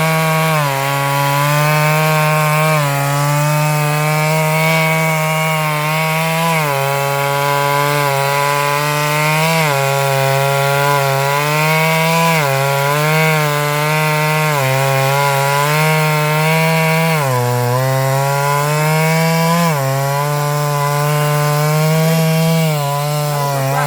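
Stihl MS 382 two-stroke chainsaw cutting into a large sengon trunk at full throttle. The engine note sags under load every few seconds and then picks back up.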